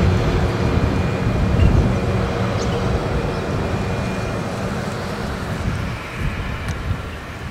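A motor vehicle's engine droning steadily, slowly fading away.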